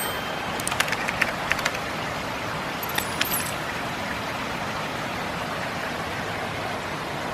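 Heavy rain falling, a steady even hiss, with a few sharp ticks about a second in and again about three seconds in.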